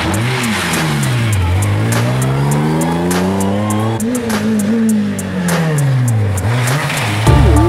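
Renault Clio rally cars accelerating out of a hairpin one after the other, engine revs climbing and dropping again and again with each gear change. Music comes in near the end.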